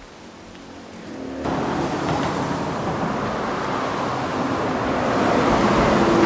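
Old motorcycle engine driving a homemade rail cart. It runs faintly at first, then about a second and a half in a loud rushing noise comes up and keeps swelling.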